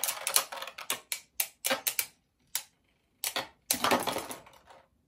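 Two Beyblade Burst spinning tops, Wonder Valtryek and Rock Devil, clashing and rattling against each other in a plastic stadium. The sound is a fast clatter of clicks that breaks off for a moment and comes back as a last flurry about three and a half seconds in. The battle ends in a simultaneous burst, both tops snapping apart.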